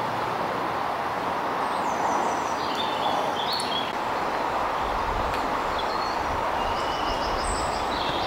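Outdoor ambience: a steady rushing noise, with small birds chirping over it twice and a low rumble joining about halfway through.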